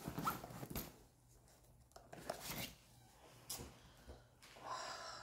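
Faint rustling and a few soft knocks as items are handled and packed into a fabric duffel bag.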